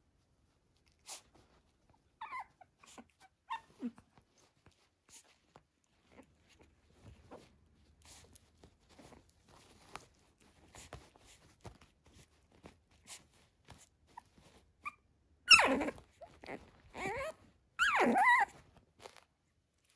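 Six-week-old Shih Tzu puppy whimpering: a few faint short whines early, then two louder wavering whines near the end. Between them come soft crinkles and rustles of the paper it is chewing.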